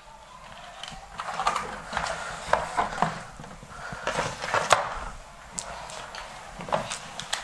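Cardboard packaging and bagged accessories being handled and set down on a wooden desk: irregular rustling with scattered clicks and knocks, the sharpest knock a little past halfway.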